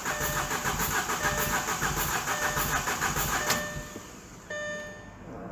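Audi 2.0 T four-cylinder engine cranking on the starter with its ignition coils disconnected, so it turns over evenly without firing, then stops about three and a half seconds in. It sounded like something was not tightened properly: a hose at the test setup turned out to be loose.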